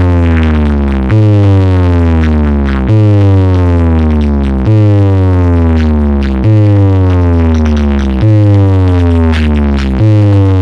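DJ remix speaker-check track: a deep, loud synth bass tone that glides downward in pitch and restarts about every 1.8 seconds, six times over.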